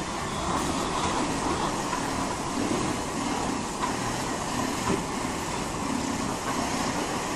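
Rotary goat milking parlour in operation: steady mechanical running noise from the turning platform and the milking machinery.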